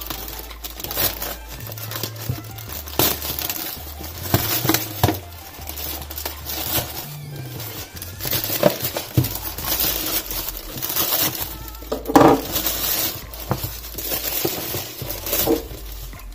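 Plastic courier mailer bag crinkling and tearing as it is cut open with a knife and pulled off a cardboard box, a dense run of short crackles with a louder one about twelve seconds in.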